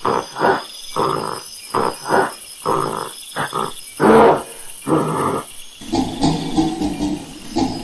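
Monkey calling in a rapid series of short, harsh calls, about two a second, then a longer wavering pitched call over the last two seconds.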